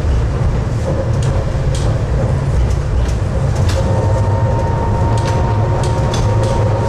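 Tatra T3R.P tram running on its rails, heard from inside: a steady low rumble with scattered sharp clicks and knocks. A steady whine joins about four seconds in.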